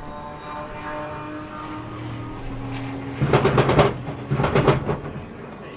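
BMW M3 GTR's 3.2-litre S50B32 inline-six being bump-started on a push in second gear: a steady engine drone, then about three seconds in the engine catches and revs loudly in two bursts.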